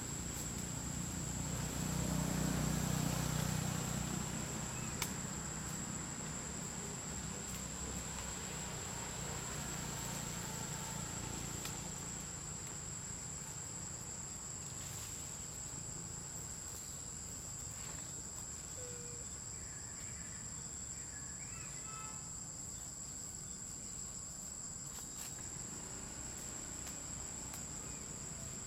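Insects droning steadily at a single high pitch, with a low rumble a couple of seconds in.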